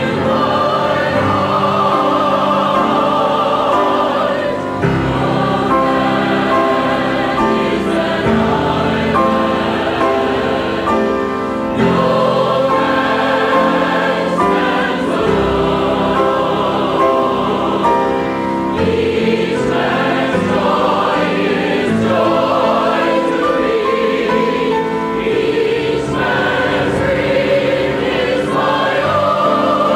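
Church choir singing a sacred song in several parts, with long held notes.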